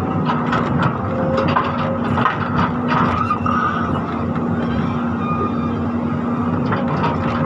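Volvo 210 excavator's diesel engine running steadily with a constant hum, with scattered knocks and clatter as its bucket loads soil into a steel dump truck bed.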